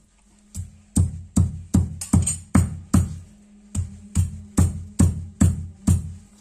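Stone pestle pounding soaked dry meat on a flat stone grinding slab: a steady run of heavy thuds, about two and a half a second, broken by a couple of brief pauses.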